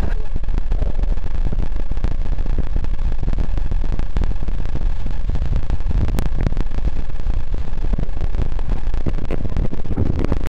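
Loud, steady rumbling noise buffeting the microphone, with fine crackles throughout and a sharp click about six seconds in.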